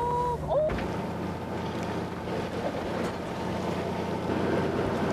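Fishing boat under way at sea: a steady engine drone with wind and waves washing against the hull. It opens with a brief pair of sliding whistle-like tones, and the sound shifts abruptly with a click under a second in.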